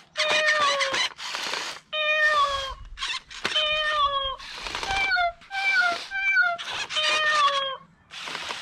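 Anko remote-control robot dog's speaker playing recorded cat meows in its 'imitate' mode: a rapid string of meows, each falling in pitch, mixed with short hissy stretches.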